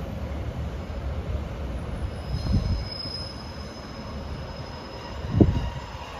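Class 156 diesel multiple units running at the platform: a steady low diesel drone, joined about two and a half seconds in by a thin high squeal. Two short low thumps, the second near the end and the loudest sound.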